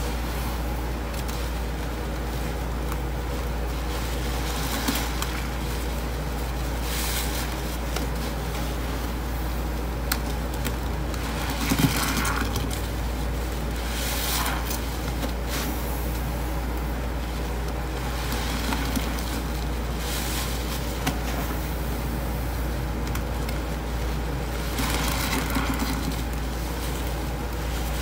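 Scrub sponges soaked in thick blue paste of powdered cleaners and water being squeezed by hand, giving irregular wet squelches, the loudest about twelve seconds in. A steady low hum runs underneath.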